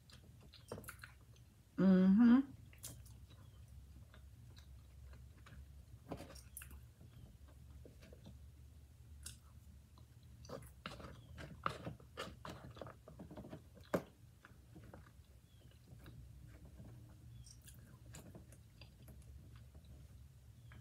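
A person chewing mouthfuls of roasted potatoes close to the microphone, with many small wet mouth clicks and smacks. A short "mmm" hum about two seconds in.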